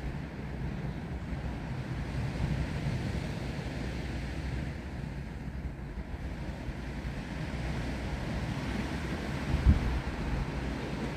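Steady wind blowing through trees, with a low rumble of wind buffeting the microphone and a stronger gust near the end.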